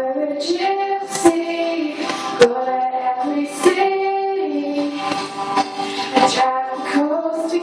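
A girl singing a song solo into a handheld microphone, mostly in long held notes that slide from one pitch to the next.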